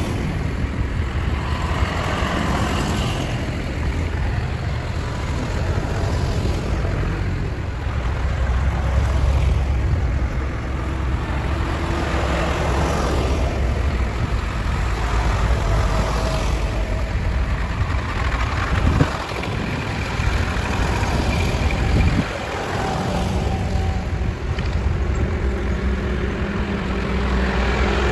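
Tractor engines running as tractors drive past one after another: a steady low engine drone that swells and fades with each pass. The audio plays slightly faster than real time.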